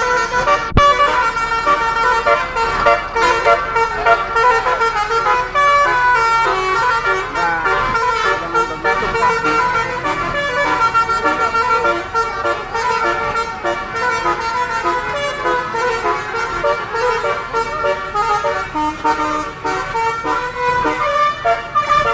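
Indonesian bus telolet horns: several multi-tone musical air horns playing short stepping tunes that overlap one another, loud and continuous.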